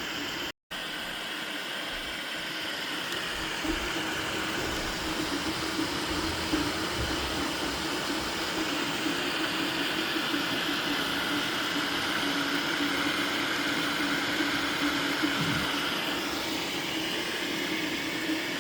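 Anycubic FDM 3D printer running mid-print, printing in PLA: a steady hiss from its cooling fans, with the stepper motors humming in a wavering tone as the print head moves.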